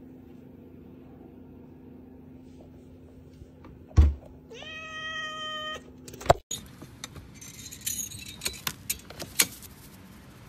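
A thump, then a domestic cat's meow held at one pitch for about a second. After that comes a string of sharp clicks and jingles.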